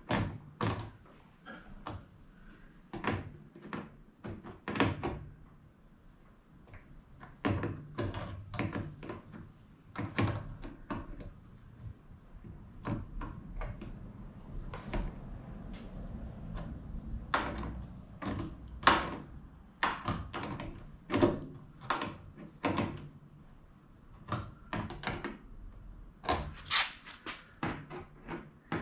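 Irregular clicks and light knocks of hand work on a black waste-water tank, as tank level sensors are fitted and tightened into it.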